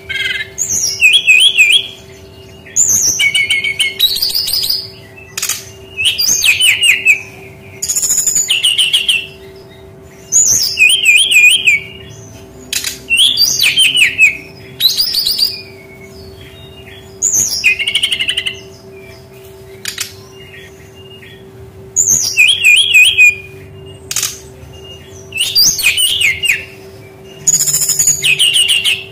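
Brown-chested jungle flycatcher (sikatan rimba dada coklat) singing: a dozen or so short, loud phrases of quick high warbles and trills, each about a second long with brief pauses between. A faint steady hum runs underneath.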